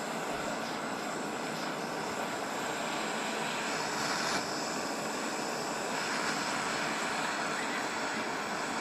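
Handheld gas soldering torch burning with a steady hiss, heating a plumbing fitting for sweat soldering.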